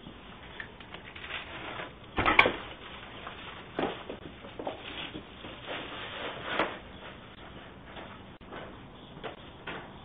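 A package being grabbed and handled at the front door, picked up through a doorbell camera's microphone: rustling and scraping with a loud clatter about two seconds in, then scattered knocks and scuffs.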